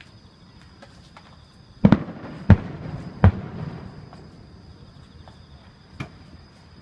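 Aerial fireworks shells bursting: three loud, sharp bangs in quick succession about two to three seconds in, each trailing off in an echoing rumble, then a fainter bang near the end.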